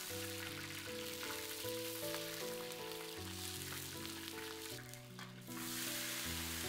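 Whole spices (Sichuan peppercorns, star anise, bay leaves, cinnamon bark) and garlic cloves sizzling in hot oil in a large iron wok, with the sizzle dropping briefly about five seconds in and picking up again as pieces of blanched pork rib are tipped in. Background music with a simple melody plays over it.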